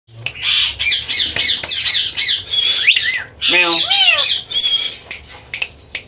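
Indian ringneck parrot (rose-ringed parakeet) giving a quick run of shrill, repeated squawks, with a short, lower, voice-like call that glides down about three and a half seconds in.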